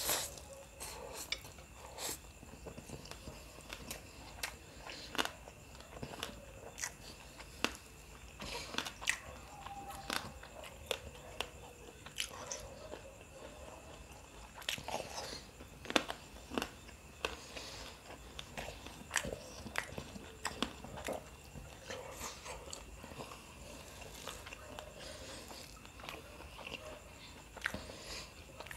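Close-miked eating sounds: a person chewing and biting mouthfuls of rice and devilled chicken, with irregular mouth clicks and smacks.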